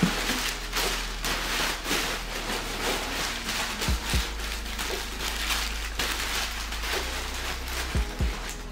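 Packing material in a cardboard box rustling and crinkling as it is rummaged through by hand, with two pairs of dull low thumps, about four seconds in and near the end.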